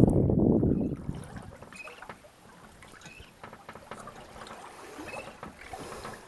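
Water rushing and lapping against a small boat's hull, loudest in the first second, then settling into light splashes and knocks with a few faint short squeaks.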